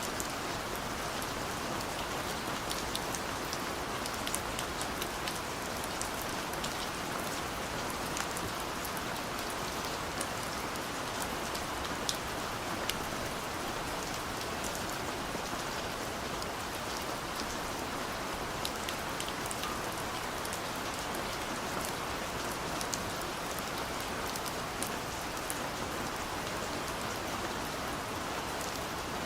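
Steady rain falling, an even hiss with many sharp little drop ticks scattered through it.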